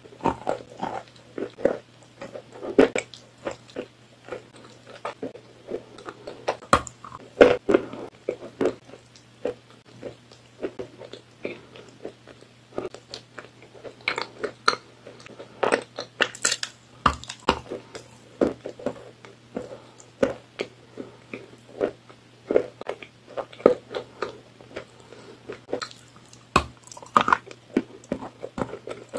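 Close-up crunching and chewing of a hard, chalky block: crisp bites and crunching chews at an irregular pace, about one to three a second, over a low steady hum.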